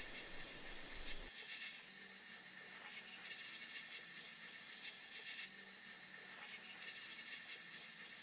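Sandblast nozzle hissing steadily in a blast cabinet as abrasive strips rust and old paint from an antique cast-iron coin bank. A low rumble under the hiss drops away about a second in.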